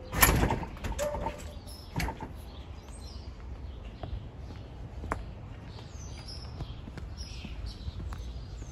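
A loud knock just after the start, then scattered footsteps on concrete steps and pavement, with small birds chirping in the background.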